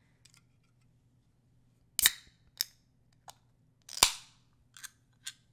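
Sharp clicks and knocks of hard drink things being handled close to the microphone ahead of a pour. There are six in all, and two loud ones about two seconds apart have a short ringing tail.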